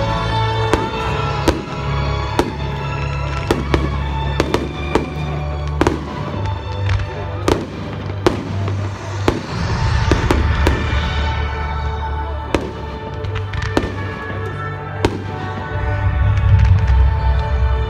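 Fireworks display: a rapid, irregular series of sharp bangs and pops from bursting shells and rising comets, over loud music with a strong bass line.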